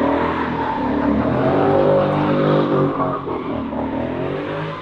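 2015 Mustang GT's 5.0 V8 through a Ford Racing X-pipe and Magnaflow Magnapack mufflers, revving hard with the pitch rising and falling, then easing off and getting quieter near the end.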